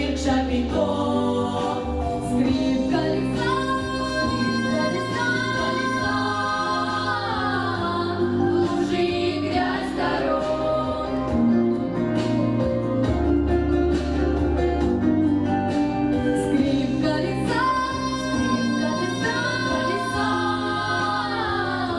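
Female vocal group singing a song in harmony over an instrumental backing with a bass line and percussion.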